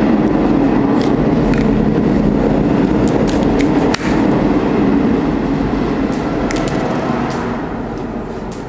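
A loud, steady rumbling noise with a wavering low hum, fading over the last few seconds. On top of it are light clicks and taps as the orange plastic Kinder Surprise capsule is pulled open and set down on the table.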